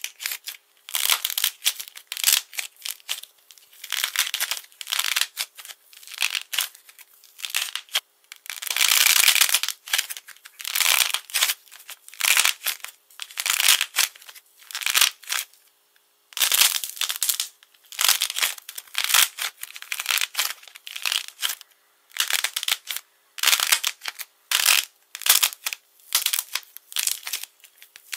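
Hardened painted coating on a ball of soft clay cracking and crinkling as hands squeeze and pull it apart, in many short, irregular crackly bursts with brief pauses between.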